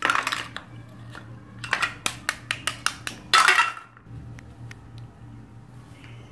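Plastic toy knife and toy fruit pieces clicking and knocking on a plastic cutting board in a quick run of sharp taps. About three and a half seconds in comes a short, louder rasping tear as the cut halves pull apart. After that only a few faint ticks.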